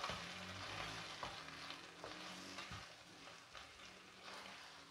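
Chickpeas in ketchup sauce sizzling in a frying pan, the splash of water cooking off, while a spatula stirs them with light scrapes against the pan.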